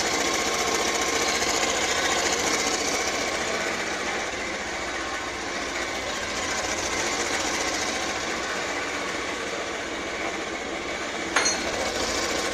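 Bajaj Pulsar 150's single-cylinder engine running steadily with an even, fast mechanical ticking. A new timing chain tensioner has just been fitted, and the sound is now right: no more loose-chain clatter. There is one sharp click about eleven seconds in.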